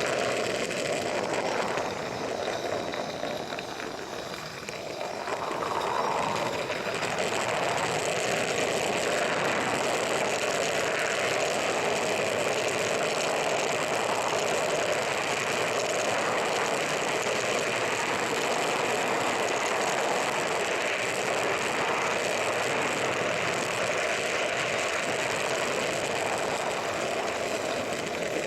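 A 16mm-scale live steam locomotive running, a steady rapid mechanical chatter. It fades somewhat about two to five seconds in, then comes back up and holds steady.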